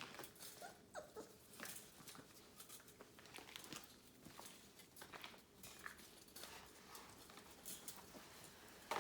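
Labrador retriever puppies, faint: a few brief whines and scattered scuffling and scratching sounds.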